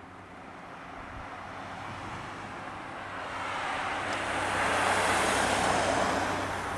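A car driving past: its road noise swells over a few seconds, peaks about five seconds in, then starts to fade.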